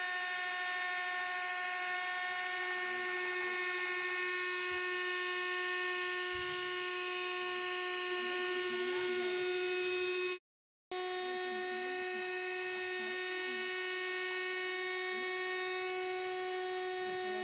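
Small electric DC motors running steadily, spinning the main and tail rotors of a homemade model helicopter: a steady high-pitched whine with a hiss. It cuts out for about half a second a little after ten seconds in, then resumes.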